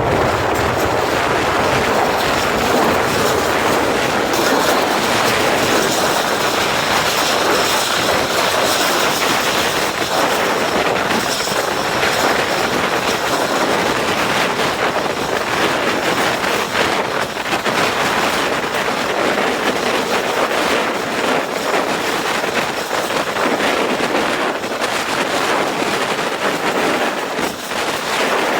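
Passenger train running along the track: a steady rail rumble with the wheels clacking over rail joints.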